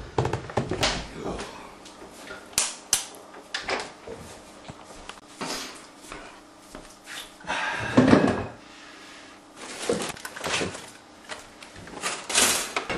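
Scattered household knocks and bumps of doors and cupboards opening and closing, with a plastic bread bag rustling near the end.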